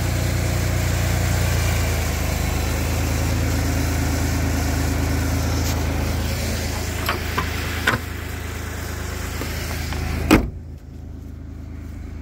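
2006 Dodge Charger's 2.7-litre V6 idling steadily, with a few light clicks and knocks about seven to eight seconds in. The hood slams shut with one loud bang about ten seconds in, and after that the engine sounds quieter and muffled.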